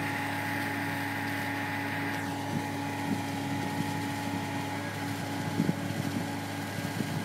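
Seagrave Aerialscope tower ladder's diesel engine and fire pump running steadily at pumping speed, a constant drone with a thin steady whine above it, as the pump supplies the master stream at the ladder tip.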